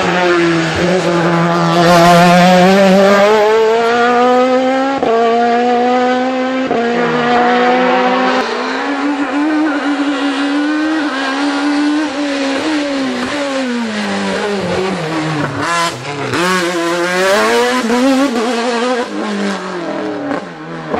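Hillclimb race car engines at full throttle, one car after another. The pitch climbs and drops sharply at each upshift, with three quick upshifts in the first half. Later an engine rises and falls in pitch again as the next car climbs through the bends.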